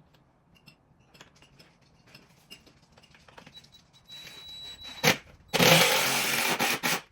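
Screws being driven into a door to fit a child-safety lock, most likely with a cordless drill: light clicks of handling, a faint whir, a sharp click about five seconds in, then a loud burst of driving lasting about a second and a half near the end.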